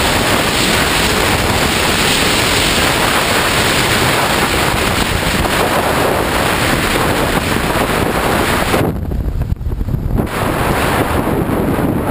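Loud, steady wind rush on a helmet-mounted camera as a motorcycle rides at highway speed. About nine seconds in, the hiss falls away sharply as the bike slows, leaving a low rumble.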